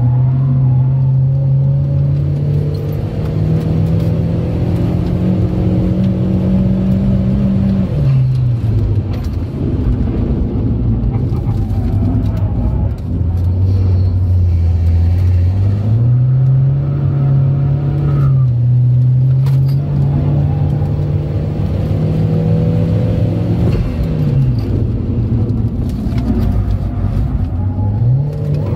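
Turbocharged Saab engine driven hard on a race track, heard from inside the car: its pitch climbs under acceleration, drops sharply about eight seconds in as the car slows for a corner, runs low, then climbs again with two quick dips near the end.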